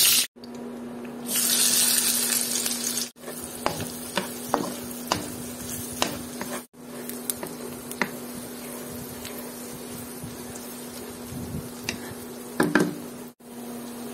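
Chopped onion frying in a non-stick pan, sizzling, with a spatula stirring and tapping against the pan. The sizzle flares loud about a second in, then settles to a steady fizz broken by sharp taps, over a steady low hum.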